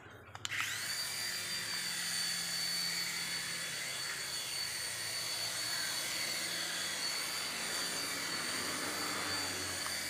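Exceed 3.5 toy remote-control helicopter's small electric rotor motors starting up about half a second in with a quick rising whine, then running at a steady high-pitched whine with the whir of the spinning rotor blades.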